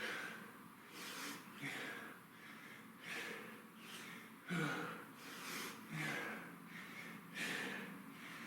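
A man breathing hard and fast from exertion during burpees: a string of short, forceful breaths in and out, roughly one or two a second.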